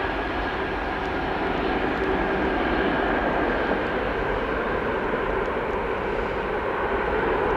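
Jet engines of a Lufthansa Airbus A340-600, a four-engine airliner with Rolls-Royce Trent 500s, running as the aircraft moves at the runway: a steady rush with a faint high whine, growing slightly louder near the end.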